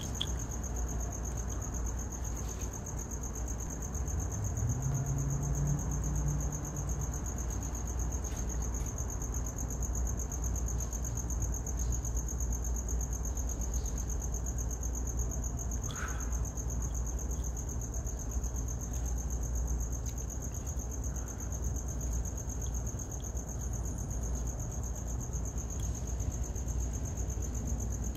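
A steady, unbroken high-pitched chorus of night insects such as crickets, over a low rumble. A brief low hum rises in pitch about five seconds in.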